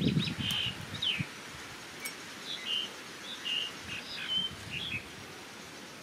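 Small birds chirping: a run of short, quick chirps for most of the first five seconds, with a low rustle of handling noise at the very start.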